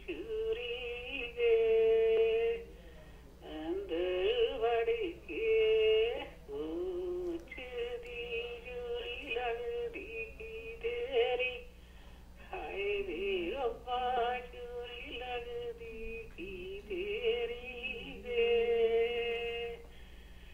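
A woman singing a Punjabi song over a telephone call, in long held, wavering notes with short breaks between phrases. Her voice sounds thin and narrow, cut off at the top by the phone line.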